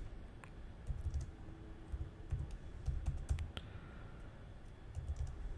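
Typing on a computer keyboard: keystrokes in short irregular runs with pauses between them.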